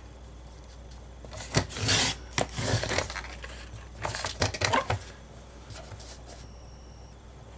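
Paper sliding and scraping on a sliding paper trimmer as a sheet of card is moved and cut by running the blade carriage along its rail. The scraping and clicking comes in two bouts, about a second and a half in and again around four seconds in.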